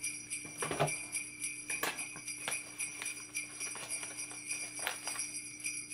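Newspaper wrapping around a potted plant crinkling and rustling in short, scattered crackles as it is handled. A steady high-pitched ringing tone runs underneath.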